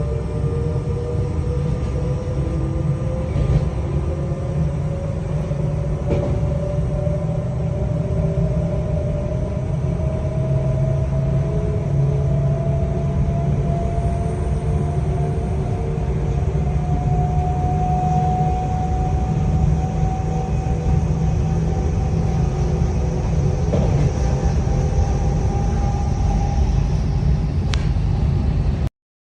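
Île-de-France electric suburban train accelerating: its traction motors whine in a tone that rises slowly and steadily in pitch over a heavy running rumble, with a few faint clicks. The sound cuts off suddenly near the end.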